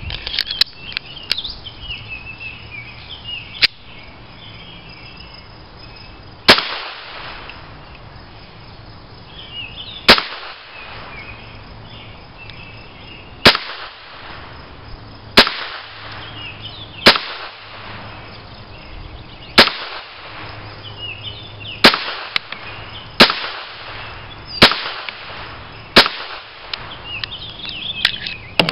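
A Walther P22 .22 LR pistol fired ten times at a slow, uneven pace, each shot a sharp crack with a short echo, after one fainter crack. Birds chirp in the background.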